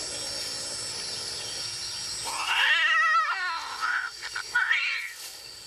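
Female cat's post-mating cry: a loud, wavering yowl about two seconds in, followed by a few shorter cries. It is the sharp cry a queen gives as the tom withdraws, attributed to the spines on the male's penis and described as evidently somewhat painful.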